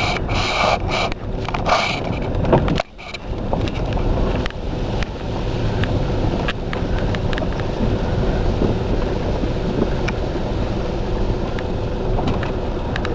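Car moving slowly along a rough dirt track: a steady rumble of engine and tyres heard from inside the cabin, with scattered clicks and knocks. The sound breaks off briefly about three seconds in.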